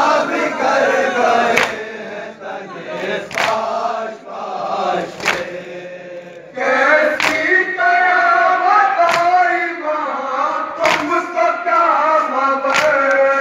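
A group of men chanting a noha, a Shia lament, in chorus. A sharp unison strike comes regularly about every two seconds, the beat of chest-beating (matam) that keeps time with the lament. A new sung line starts about halfway through.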